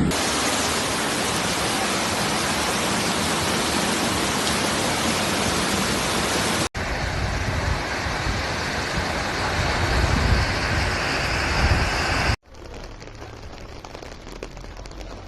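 Steady noise of heavy rain and rushing floodwater, heard in three clips cut together; the last clip, from about twelve seconds in, is much quieter.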